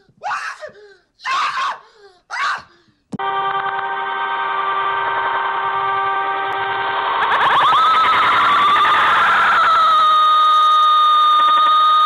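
Three short cartoon voice exclamations, then about three seconds in a loud, steady electronic alarm-like ringing starts abruptly. It grows louder and fuller around seven seconds and holds on one strong tone.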